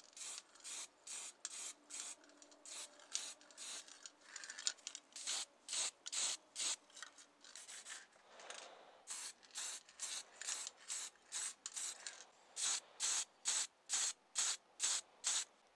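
Aerosol spray paint can hissing in short, rapid bursts, about two to three a second, with a short break about halfway through.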